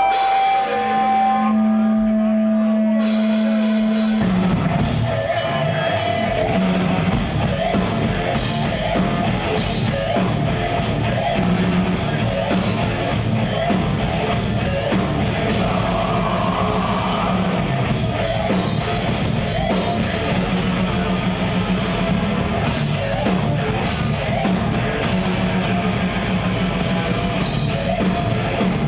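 Live progressive death metal band playing loud: a few held sustained notes, then about four seconds in the full band comes in with pounding drums and heavily distorted guitars.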